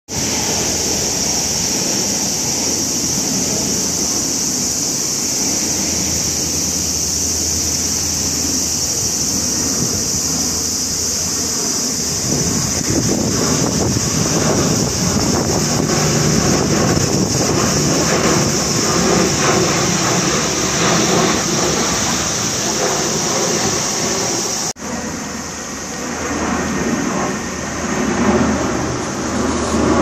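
Lockheed C-130 Hercules passing overhead: the low, steady drone of its four turboprop engines, swelling about twelve seconds in and staying loud as it crosses the sky, with a brief dip near the end. A steady high-pitched hiss runs beneath it.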